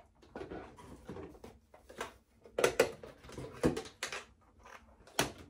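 Plastic vitamin bottles and travel containers knocking and clattering against each other in a cardboard box as they are picked up and moved, with a run of sharp clicks and taps, the loudest in a cluster past the middle and one more near the end.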